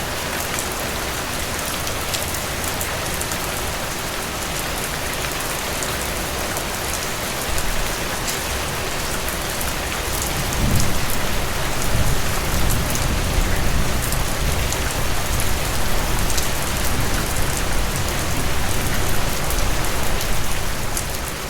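Steady heavy rain falling on a surface: a dense hiss with individual drops ticking through it. About halfway through it grows louder, with a deeper low rumble underneath.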